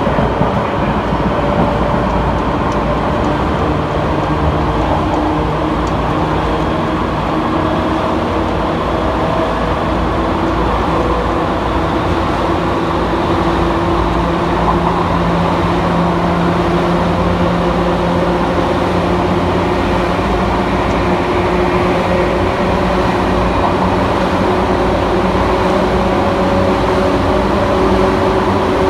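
Tokyu 8500-series electric train (set 8637F) running through an underground tunnel section. A continuous rumble of wheels on rail is overlaid with traction-motor and gear hum whose pitch climbs slowly as the train gathers speed.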